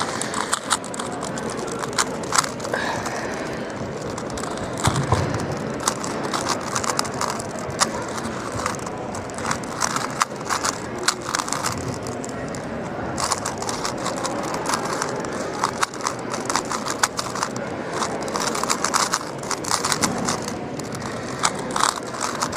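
Rubik's-brand 3x3 cube being turned fast in a speedsolve: a rapid, uneven stream of plastic clicks and clacks as the layers snap round.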